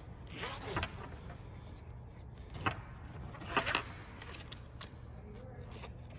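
Nylon harness webbing rustling and scraping as it is fed through a plastic tooth clip on a scuba backplate, in three short scrapes (about half a second in, near the middle, and soon after), over a low steady hum.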